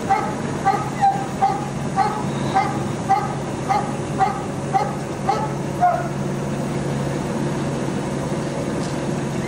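A dog barking over and over, about two barks a second in an even rhythm, stopping about six seconds in, over a steady low hum.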